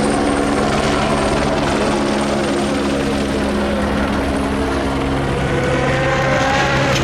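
Helicopter hovering overhead with a steady rotor and engine drone. From about five seconds in, a car's engine note rises beneath it.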